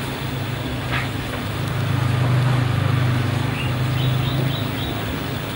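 Low steady motor hum, like a vehicle engine, growing louder through the middle and easing off near the end, with a brief knock about a second in and faint high chirps.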